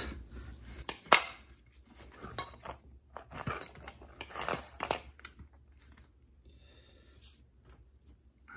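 Metal clicks and clatter from handling a grease gun and its hose, with a sharp click about a second in, then scattered clinks and rustling that fade after about five seconds.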